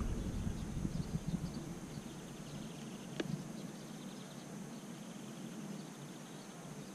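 Quiet outdoor ambience: faint insects chirping high up, a low rumble that fades over the first two seconds, and a single sharp click about three seconds in. No motor sound: the Hubsan 501S quadcopter's motors fail to spin.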